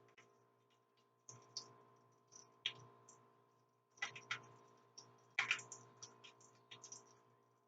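Floured chicken frying in grease that is not yet fully hot: faint, irregular crackling pops, a few a second, over a steady low hum.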